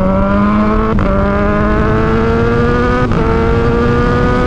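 Kawasaki Ninja 1000SX inline-four on a loud aftermarket shorty exhaust, accelerating with its pitch climbing steadily. About a second in and again about three seconds in, a brief crack from the exhaust breaks the note as the quickshifter shifts up a gear.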